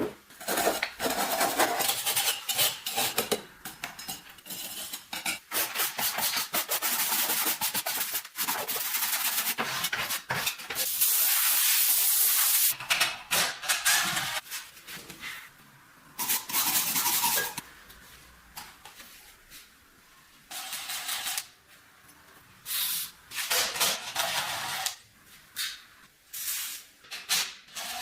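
Hand tools scraping and rubbing on the metal parts of a rusty antique sewing machine, with scattered clicks and knocks. A steadier hiss runs for under two seconds about eleven seconds in.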